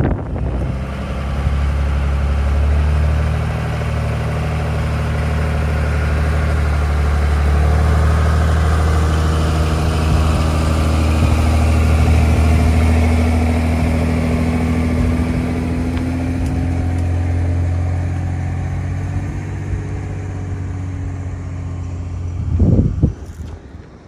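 Pickup truck engine running as it tows a loaded flatbed trailer, growing louder toward the middle and then easing off, with one tone slowly rising. A brief loud noise near the end.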